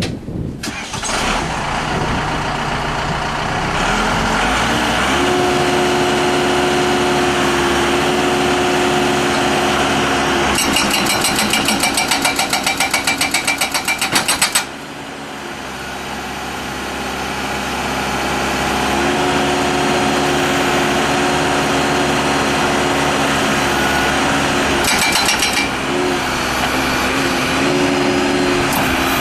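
Case 590 Super L backhoe's diesel engine running and revving up, then the Allied 740 hydraulic hammer pounding concrete in a rapid, even hammering of about ten blows a second for some four seconds, stopping abruptly. The engine speed dips and climbs back, and a second brief burst of hammering comes near the end.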